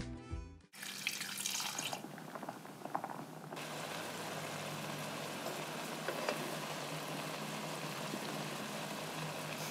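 Minced meat and onion sizzling as they fry in oil in a pan, a steady hiss with scattered small crackles.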